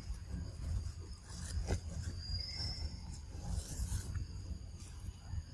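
Outdoor ambience: a steady low rumble with faint scrapes and clicks, one sharper click about a second and a half in, and a short high chirp just after two seconds.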